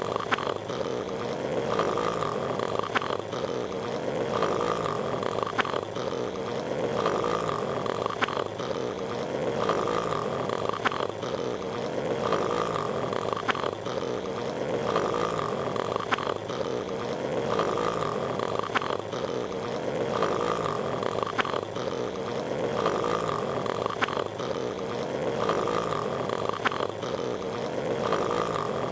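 Patrick Star's cartoon snoring, looped: one snore cycle repeating about every two and a half seconds, each with a sharp click, over a steady noisy bed.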